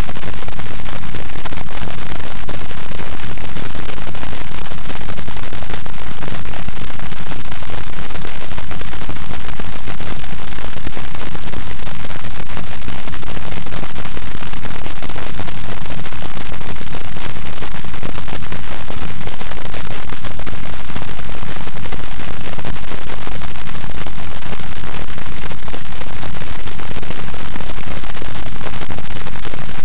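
Loud, steady static noise filling the sound track, unchanging throughout, with no speech or other sound heard through it.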